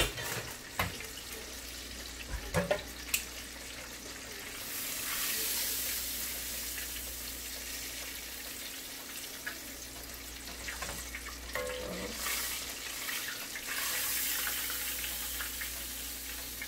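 Hot frying oil hissing as fried catfish pieces are lifted out of the pot. The hiss swells twice, with a few sharp utensil clicks in the first few seconds.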